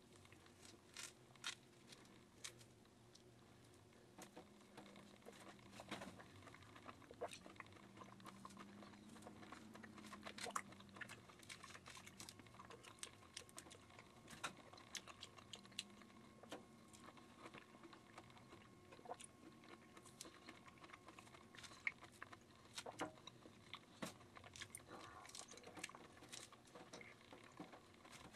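Faint chewing and eating sounds of a person eating orange wedges: scattered small wet clicks and smacks, with no steady rhythm.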